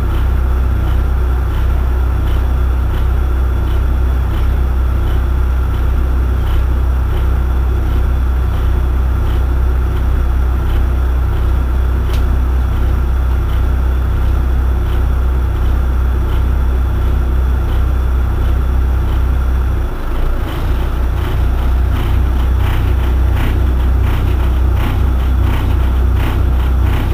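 Irisbus Citelis 18 articulated city bus idling while stationary: a loud, steady low engine drone with a steady higher whine over it and a faint tick about once a second.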